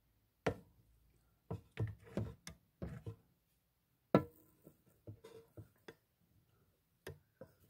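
A series of irregular knocks and taps, the loudest about four seconds in: handling noise from the phone bumping and shifting against the gecko's clear-walled container.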